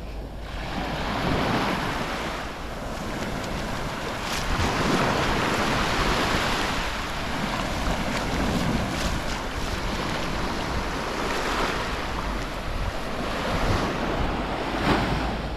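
Sea waves breaking and washing up the shore, the noise swelling and easing in surges, with wind rumbling on the microphone.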